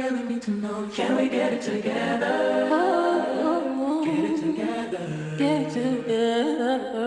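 Background music of layered singing voices, choir-like and without clear words, over a steady sustained low note.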